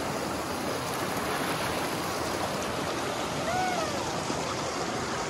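Shallow rocky creek rushing over and between boulders in a small rapid: a steady, even rush of water.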